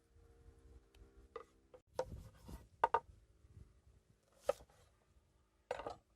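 A knife chopping food on a cutting board: a handful of sharp, irregular knocks, the loudest two in quick succession about three seconds in.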